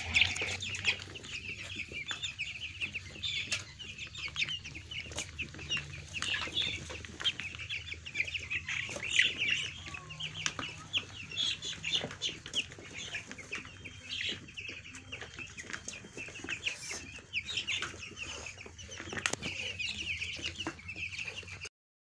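A flock of young broiler chicks peeping, with many short high calls overlapping without a break. The sound cuts off abruptly just before the end.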